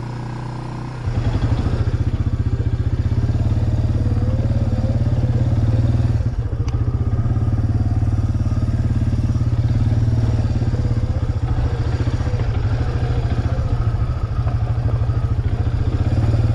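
Suzuki 400 ATV's single-cylinder engine running steadily under way. It comes in loud and pulsing about a second in.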